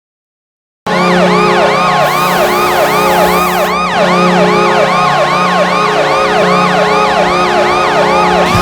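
Kahlenberg Q-3 arena goal horn cutting in suddenly about a second in and holding a steady low chord, with a siren rising and falling about three times a second over it.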